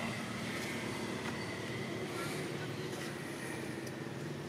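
A steady low mechanical hum, like a distant engine running, with faint outdoor ambience.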